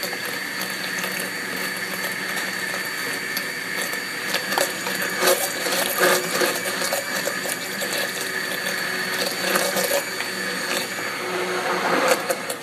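Hand immersion blender running at high speed down in a plastic container of water, a steady motor whine with the water churning and occasional sharp clicks. It is mixing sodium alginate and sodium citrate into the water to make an alginate bath for spherification.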